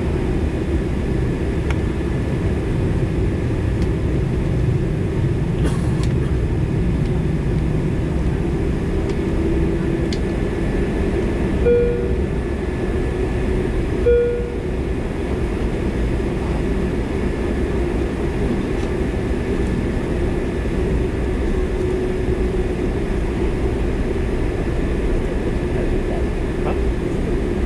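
Steady low hum and rumble inside a jet airliner's cabin, its engines idling while it waits on the ground before take-off. Two short tones sound about two and a half seconds apart, a little before the middle.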